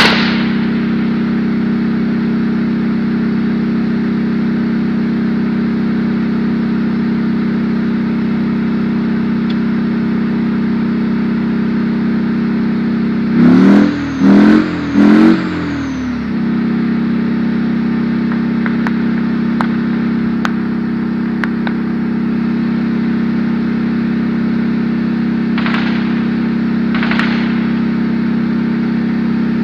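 Tank engine idling close by with a steady drone. About halfway through it revs up in three short, loud surges, then settles back to idle.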